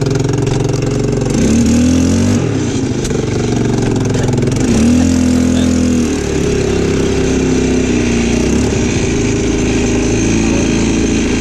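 Quad ATV engine running as it is ridden, revving up twice, about a second in and again around five seconds, then settling back to a steady drone.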